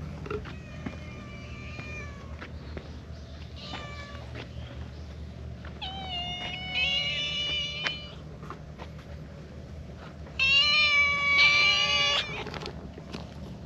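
Cats meowing several times, from a Siamese-type and an orange tabby pair: attention-seeking calls from friendly free-roaming cats. The calls start faint and grow louder, and the longest and loudest meow, about two seconds long, comes near the end.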